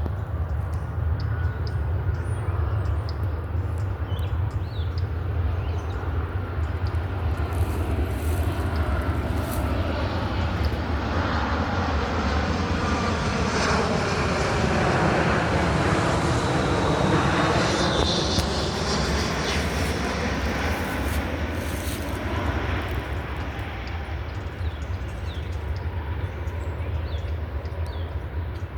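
An aircraft flying overhead: a steady engine drone that swells to its loudest a little past halfway, with a sweeping, phasing tone as it passes, then slowly fades.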